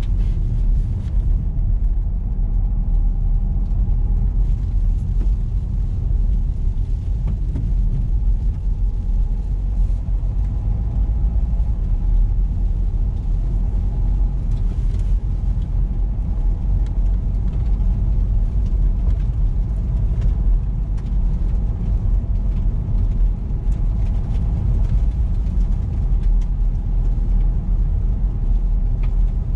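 A car driving along a road: a steady low rumble of engine and tyre noise.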